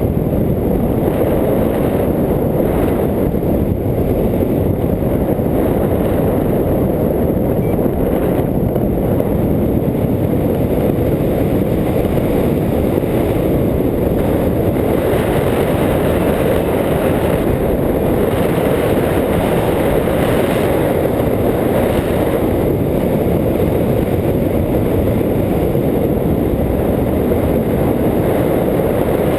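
Steady, loud wind rush buffeting the microphone of a camera carried on a hang glider in flight.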